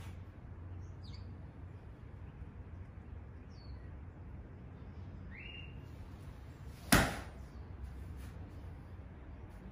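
One sharp snap about seven seconds in, from a strike or stamp in a taekwondo poomsae form, over a low steady hum with a few faint bird-like chirps.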